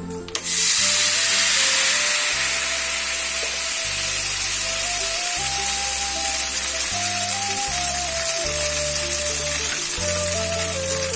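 Kremes batter hitting hot frying oil in a pan: a loud sizzle starts suddenly about half a second in and keeps up steadily as the crispy lacy batter fries.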